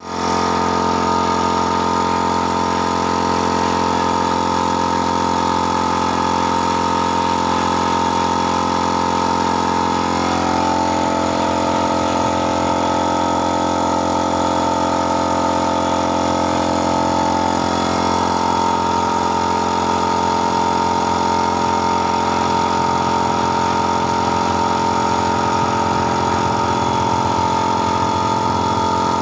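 A motor running steadily, a constant hum with a prominent high whine whose pitch shifts slightly twice.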